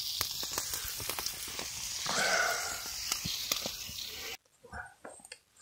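Rustling and handling noise from a handheld camera being moved about, with scattered small clicks; it drops out abruptly about four seconds in.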